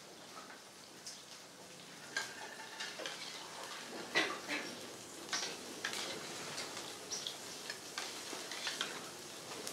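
A steel spoon stirring a thin buttermilk and bajra-flour batter in a small steel pot, clinking irregularly against the metal sides, starting about two seconds in.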